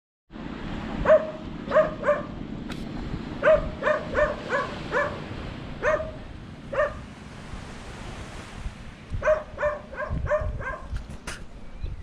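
A dog barking over and over in quick runs of short barks, with a pause of about two seconds before a final run. A steady low rumble lies underneath.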